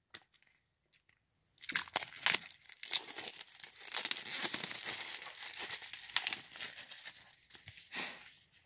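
Plastic shrink-wrap being torn and peeled off a new CD case, crinkling and crackling, starting about a second and a half in.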